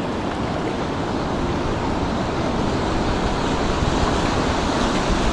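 Small waves washing steadily over a shallow rocky shore, with wind rumbling on the microphone.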